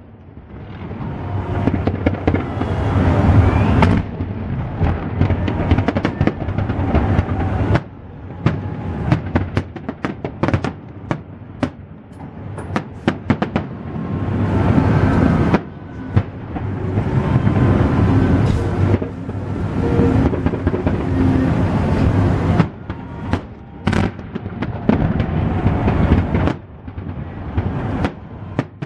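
Fireworks salute bursting overhead: many sharp bangs throughout, some scattered and some in quick clusters. A steady low rumble runs underneath.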